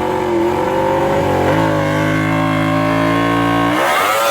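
Racing motorcycle engine revving at high revs, played as a sound effect. Its pitch shifts about a second and a half in and changes again near the end.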